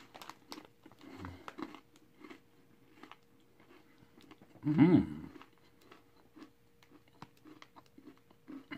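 Chewing a crunchy birthday cake covered pretzel with the mouth closed: many small crisp crunches. About five seconds in there is a short hummed vocal sound, the loudest moment.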